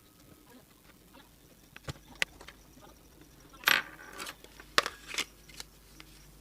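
Handling of a small plastic keypad mobile phone: scattered sharp clicks and taps, with a louder brief scrape about three and a half seconds in.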